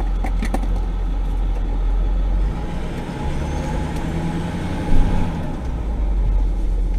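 Ford F-450 truck engine heard from inside the cab, running steadily, then pulling away with a change in engine note about two and a half seconds in. A short loud thump comes about five seconds in.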